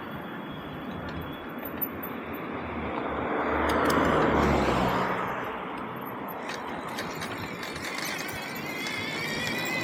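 A motor vehicle passes, swelling to its loudest about four seconds in and fading, over steady road and wind noise. Near the end a high squeal starts and rises slightly in pitch.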